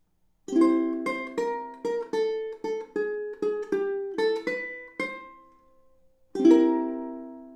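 Short ukulele tune: a strummed chord, then a quick melody of single plucked notes, and after a brief pause a final strummed chord left to ring out.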